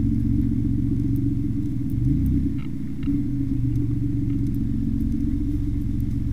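Polaris Predator 500 ATV's single-cylinder four-stroke engine idling with a steady low rumble, its note wavering briefly about two seconds in.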